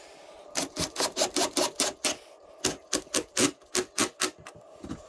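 Cordless drill-driver driving a screw into a wooden ceiling molding, heard as two runs of rapid, even clicking bursts, about five a second, with a short pause between them.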